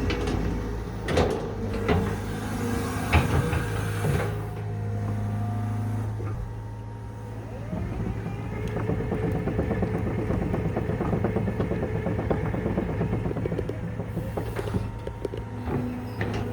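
Excavator's diesel engine running steadily, with several sharp metallic clanks and knocks in the first few seconds and again near the end.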